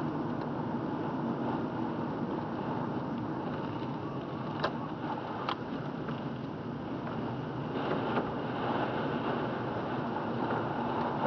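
Steady driving noise inside a car moving along a wet road: engine and tyre noise. About halfway through come two sharp clicks a little under a second apart.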